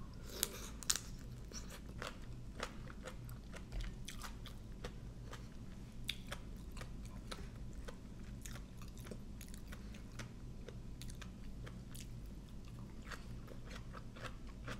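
Close-up chewing of a mouthful of raw salad vegetables, with many small crisp crunches and mouth clicks, a few sharper ones in the first second, over a steady low hum.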